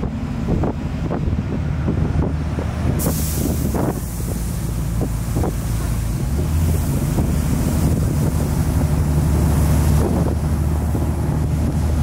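Open-top double-decker sightseeing bus running along the road, its engine a steady low hum, with wind rushing over the open upper deck and onto the microphone. A high wind hiss comes in sharply about three seconds in.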